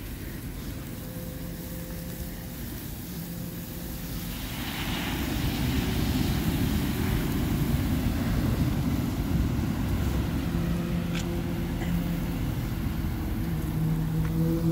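A distant engine drones at a steady pitch over a low outdoor rumble, getting louder about four seconds in.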